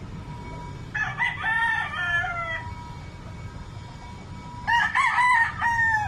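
Roosters crowing: two cock-a-doodle-doo crows, the first about a second in and lasting about a second and a half, the second starting near the end.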